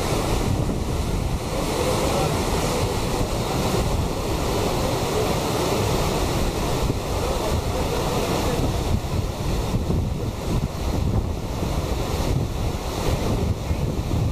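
Steady rush of fast whitewater rapids on a rocky mountain river, with wind buffeting the microphone.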